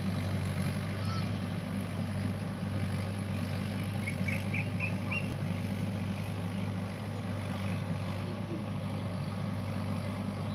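Mahindra tractor's diesel engine running steadily while pulling a cultivator through the field.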